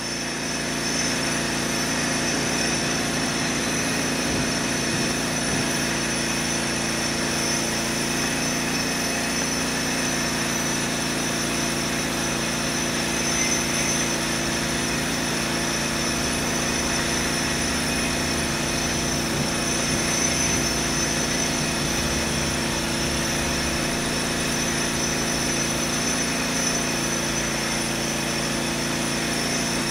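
Steady machine drone with several held tones, low and high, over an even rushing noise.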